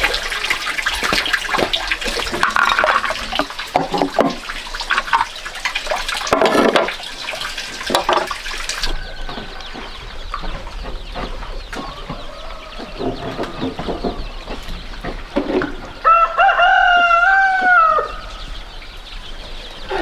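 Rushing water with splashes through the first half, then a rooster crows once near the end, a single call of about two seconds that rises, holds and falls away.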